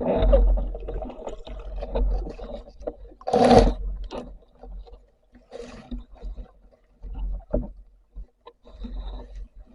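Water sloshing and splashing around a spearfishing diver in irregular surges, with a low rumble, and one louder splash about three and a half seconds in.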